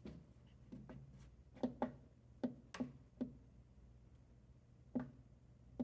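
Repeated sharp clicks, like a button on a Coofly S1000 portable power station being pressed over and over while the unit fails to stay on. There are about eight irregular clicks in the first three and a half seconds and two more near the end, over a low steady hum.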